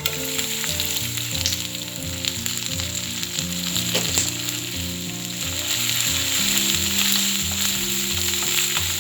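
Chopped onions, green chillies and curry leaves sizzling steadily in hot oil in a pan as they temper, with a couple of light clicks from stirring. Background music plays underneath.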